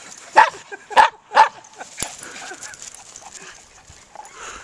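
Dog barking three times in quick succession during rough-and-tumble play in the snow.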